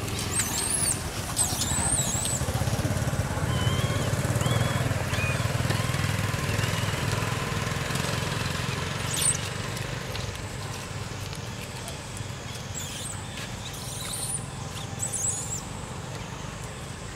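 Steady low hum of a vehicle engine running, with a few short high-pitched chirps and squeals about a second in, once near the middle, and several more toward the end.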